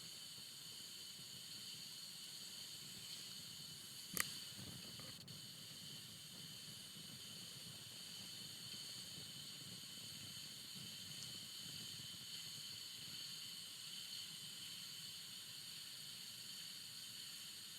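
Faint steady hiss of background noise, with a single sharp click about four seconds in.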